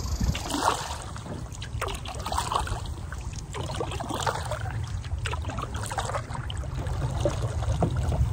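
Canoe paddle dipping and pulling through calm river water, with drips, small splashes and occasional light knocks, over a steady low rumble.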